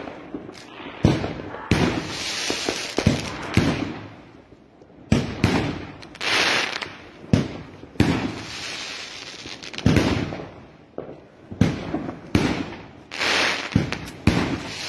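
New Year fireworks going off in quick succession: a string of sharp bangs, several of them followed by about a second of crackling hiss.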